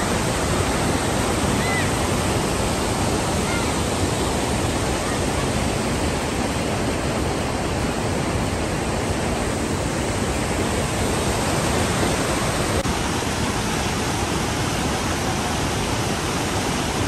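Mountain stream rushing over boulders and a small waterfall: a steady, even rush of water.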